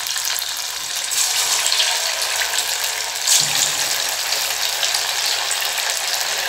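Masala-coated shark fish pieces sizzling in hot oil in a steel kadai as they are added one by one. The sizzle swells briefly about three seconds in, as another piece goes into the oil.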